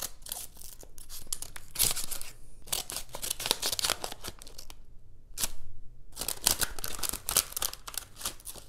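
Scissors cutting open a paper envelope: runs of short snips with paper crinkling, broken by brief pauses.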